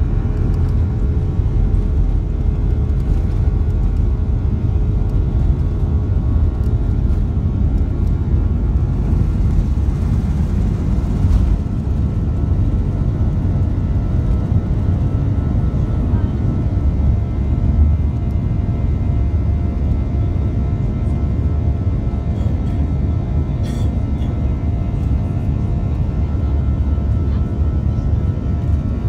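Airbus A340-300's CFM56 turbofans at takeoff thrust, heard from inside the cabin: a loud, deep rumble with a steady fan drone through the takeoff run and initial climb. The rumble eases slightly about twelve seconds in.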